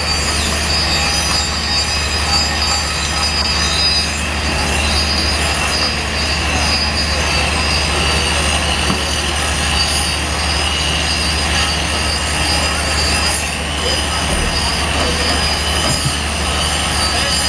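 Mobile flash butt rail welding machine running during a weld: a steady low hum from its power unit with a high-pitched whine over it.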